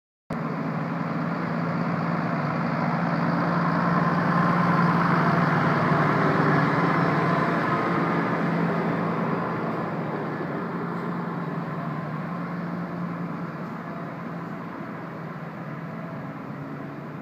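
Road-sealant spray tanker running: a steady engine hum with a broad rushing noise over it. It starts abruptly just after the opening, is loudest around the middle and slowly fades toward the end.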